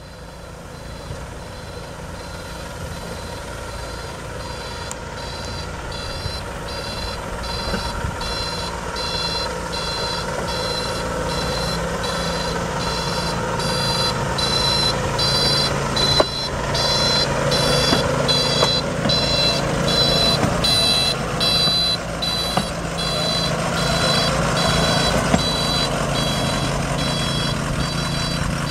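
Hi-rail weed-sprayer pickup truck running along the rails toward the listener, its engine growing louder as it nears, with a beeping alarm repeating at a steady pace throughout.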